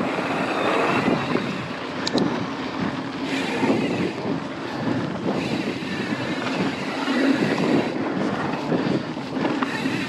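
Wind rushing over the microphone and mountain bike tyres rolling over dirt singletrack, a steady noisy wash that swells and eases slightly with the riding.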